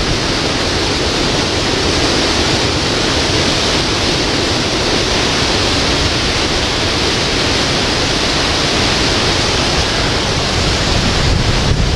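Hurricane wind and rain: a steady, loud rush of noise with no breaks.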